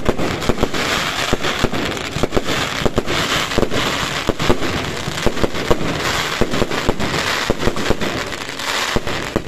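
Fireworks display: a dense, continuous crackling with many sharp bangs and pops every second as shells burst overhead.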